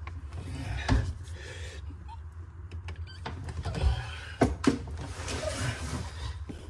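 Scattered knocks and scraping of hands handling copper pipework and a push-fit valve, over a steady low rumble.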